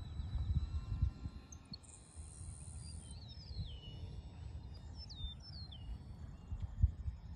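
Birds calling with short descending whistles a few times, over a low gusty rumble of wind on the microphone.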